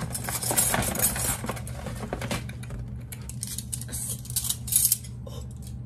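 Packaged set of metal flatware handled and shaken, the pieces clinking and rattling against each other inside plastic-and-card packaging, which crinkles along with them. The loudest rattle comes near the end.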